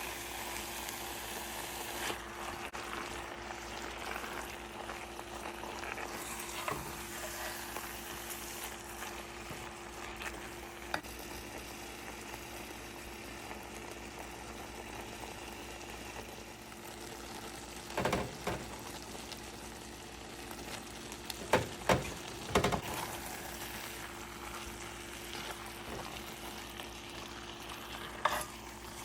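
Food sizzling as it fries in a pot, stirred now and then, with a few sharp knocks of the spoon against the pot about two-thirds of the way through and again near the end.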